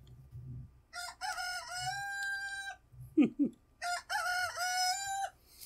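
Rooster crowing twice, each crow a long call that rises and then holds its pitch.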